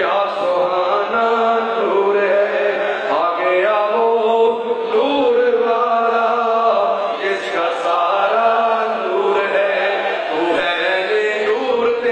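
Men's voices chanting together in a steady, repeating rhythm, like a devotional chant.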